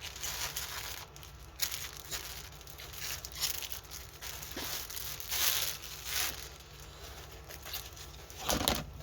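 Plastic crinkling and rustling in irregular bursts as diamond painting canvases and their plastic bags are handled, with a louder rustle about halfway through and a fuller one near the end.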